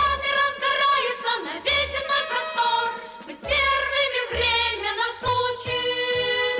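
Background music: a song with a sung voice over a steady bass beat.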